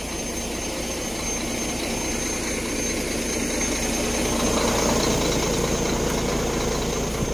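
Heavy truck's diesel engine idling steadily, getting somewhat louder about halfway through.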